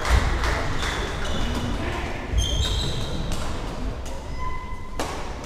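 Badminton rackets striking shuttlecocks in irregular sharp cracks across several courts, with short squeaks of sports shoes on the wooden floor, all echoing in a large sports hall.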